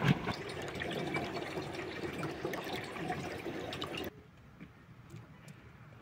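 Spring water running into a plastic jerrycan held with its mouth under the surface, filling it. The sound stops abruptly about four seconds in, leaving only faint clicks.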